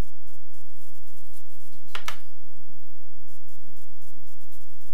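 A single short plastic click about two seconds in, from the display case's handheld remote being handled, over steady room noise.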